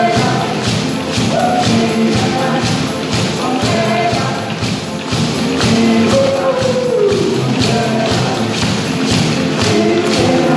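Live band music: hand drums and a drum kit with a beaded gourd shaker keeping a steady rhythm of shaken strikes, while a man and a woman sing into microphones.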